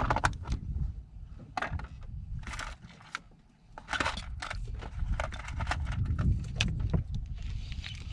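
Spinning reel and rod being worked while jigging: irregular clicks and small rattles, coming thicker a little past the middle, over a steady low rumble.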